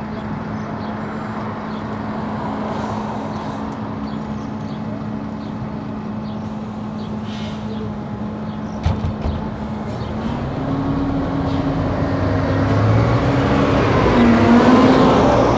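Scania city bus's diesel engine idling at a stop with a steady hum, a short thump about nine seconds in, then the engine revving up as the bus pulls away and grows louder passing close by.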